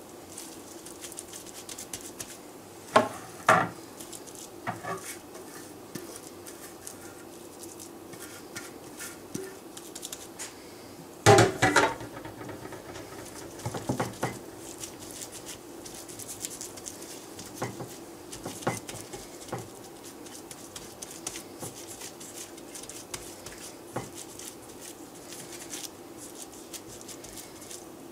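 Gloved hands patting and pressing raw ground-meat meatloaf mixture into a loaf on a stone slab: irregular soft pats and slaps, with a louder cluster about eleven seconds in, over a steady faint hum.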